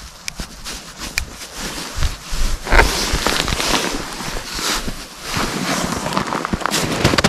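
Close rustling and handling noise from hands and clothing working right at the microphone, with scattered short clicks and knocks.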